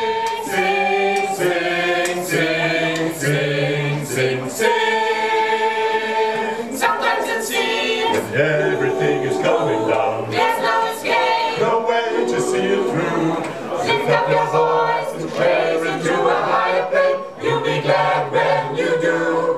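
Mixed choir of women's and men's voices singing a cappella, moving through held chords that change about every second, with one long held chord about five seconds in.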